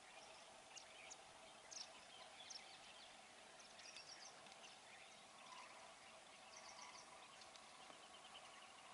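Faint background birdsong: scattered short high chirps from small birds, with quick rapid trills about four seconds in and again around seven seconds, over a low steady hum.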